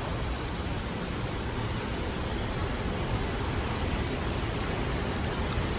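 A steady, even rumble of a vehicle engine running, with no changes.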